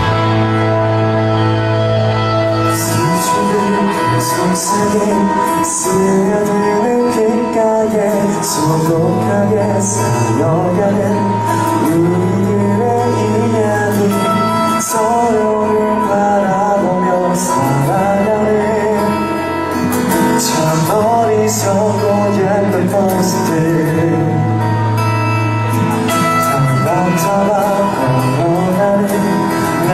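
A man sings a song live into a microphone over instrumental backing, his voice coming in about three seconds in.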